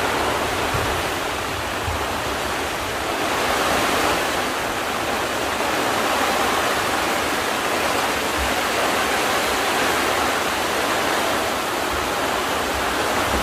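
Heavy storm rain pouring down on the tents and tarps, a steady even hiss.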